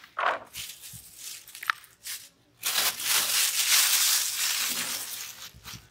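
Dry rice grains poured from a plastic bag into a plastic tub, a steady rattling hiss lasting about three seconds from about halfway through. Before it, a few short crinkles of plastic bag being handled.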